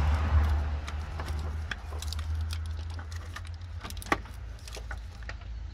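Scattered light metallic clicks and rattles of tools and engine parts being handled, over a low steady hum that is strongest at the start.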